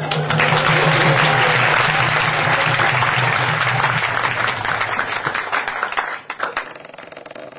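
Audience applauding at the end of a short speech, a dense wash of clapping that dies away about six seconds in.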